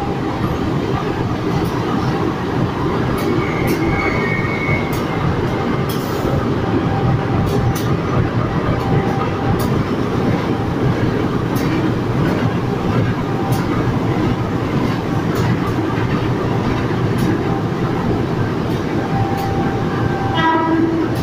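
Two General Electric diesel-electric locomotives, a CC203 leading a CC201, running with a steady heavy rumble as they haul a passenger train into the station and come to a stand. A brief high squeal sounds about four seconds in.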